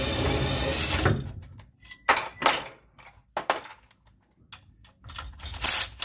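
Steel angle bracket being worked loose and pulled off a car frame: a scraping rub, then several sharp metal clanks and knocks.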